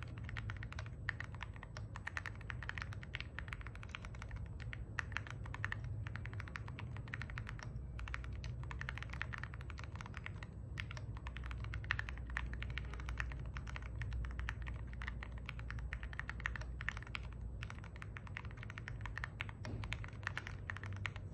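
Mechanical keyboard fitted with prelubed EG Aqua King V3 linear switches, typed on in a fast, continuous run of keystrokes. The key sound is fairly deep, poppy and creamy rather than clacky.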